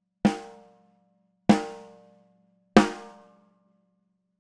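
Metal-shell snare drum struck three times, single hits about a second and a quarter apart. Each rings out with a rattle of snares and a lingering low tone. Heard through a close microphone clamped to the drum's rim.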